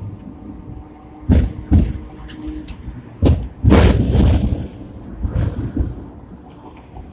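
Hong Kong double-deck tram (replica fifth-generation car) running along its track, heard from the driver's cab: a low running rumble with loud knocks and rattles, three sharp ones in the first few seconds, then a loud rushing burst about three and a half seconds in.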